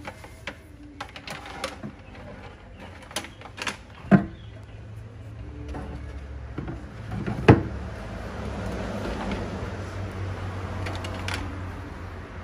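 Handling noise of a 12-inch loudspeaker being fitted into a carpeted wooden cabinet: scattered clicks and knocks, then two heavy thumps about four and seven seconds in, the second and louder as the speaker is set down into its cutout in the baffle. A low steady hum runs underneath from about six seconds on.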